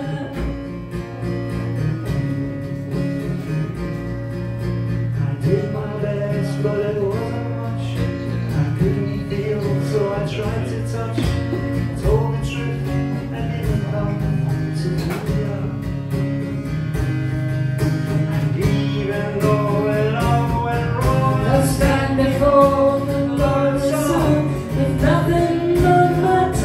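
Acoustic guitar played live with singing over it, a slow ballad. A woman sings into a handheld microphone near the end.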